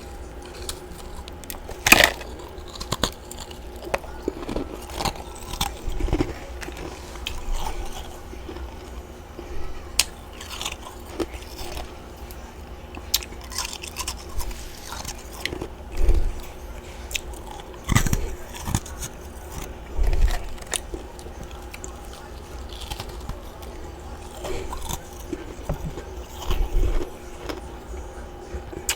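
Close-miked biting and chewing of large chunks of freezer frost: loud, irregular crunches, the loudest about two seconds in.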